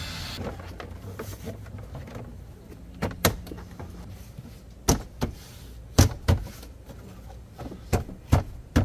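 Scattered sharp clicks and knocks, about eight of them, from hands working the plastic interior trim panel of a minivan's rear cargo area as the solar wire is routed behind it, over a low steady hum.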